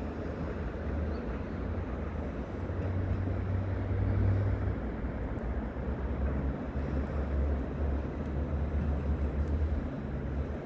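Steady low outdoor rumble, deepest in the bass, swelling a little about four seconds in.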